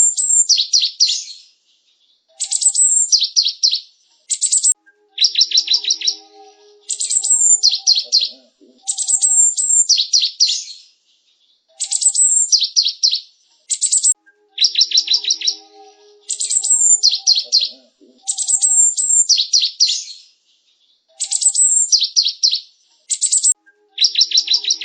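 Cinereous tit (gelatik batu) singing: bouts of high, sharp chirps and fast trills, each a second or two long, repeated over and over with short pauses between.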